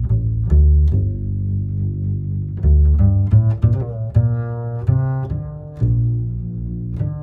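Background music: a tune of low pitched notes, each starting sharply, with several notes in quick succession around the middle.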